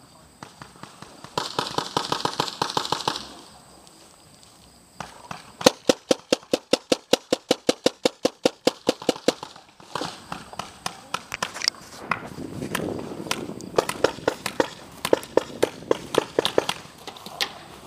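Paintball markers firing in rapid strings of sharp pops, about five shots a second, with short pauses between strings.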